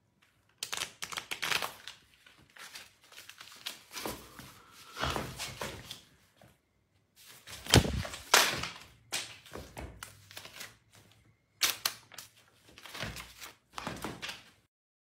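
Scattered short knocks and clicks of handling and movement in a small room, irregular, with the loudest knock about halfway through.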